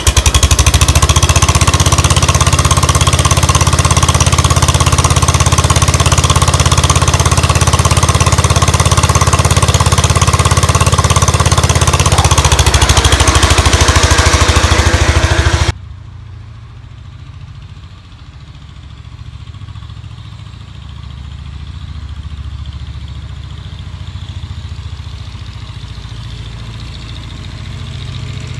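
Engine of a 1967 Ford 120 garden tractor running, very loud and close with a steady low hum. About sixteen seconds in it drops suddenly to a much quieter running sound, which slowly grows louder near the end.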